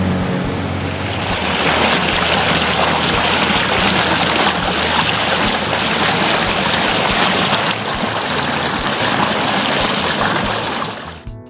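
Boat underway: water rushing and spraying along the hull, loud and steady, over a faint low hum from the boat's motor. It falls away just before the end.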